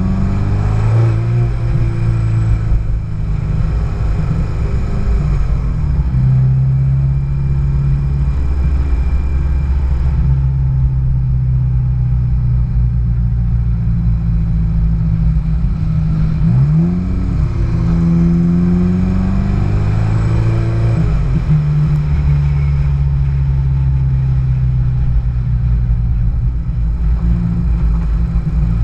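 Car engine running at low road speed, its pitch holding steady for stretches and stepping or gliding up and back down a few times as it speeds up and eases off.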